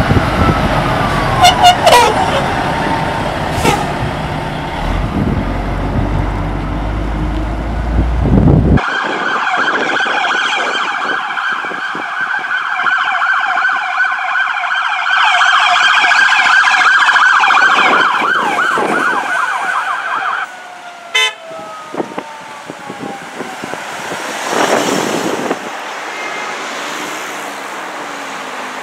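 Fire tanker truck's diesel engine rumbling as it rolls past, with a siren tone falling away. After a cut, an emergency vehicle's electronic siren warbles rapidly for about eleven seconds and then stops. A falling siren tone and passing traffic follow.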